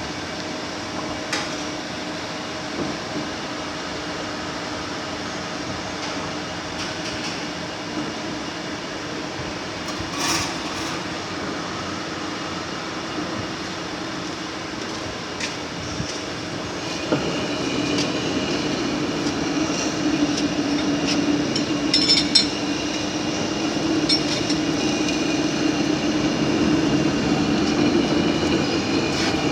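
Lathe turning a cast iron roll: a steady machine hum with occasional metallic clinks and knocks. About halfway through it grows louder, and a high steady ringing joins in.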